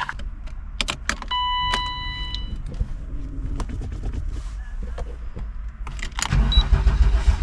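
Sounds from inside a car: sharp clicks and a steady electronic tone lasting about a second. About six seconds in, an engine starts and runs with a low rumble.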